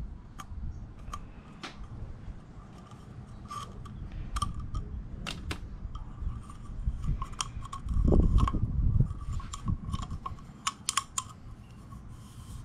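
Scattered small clicks and scrapes of hands working a plastic canister-type oil filter cap while swapping its rubber O-ring, with a low rumble lasting about a second around eight seconds in.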